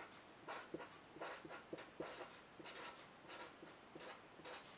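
Black marker pen writing block capitals on paper: a run of short, faint stroke sounds, one for each line of the letters.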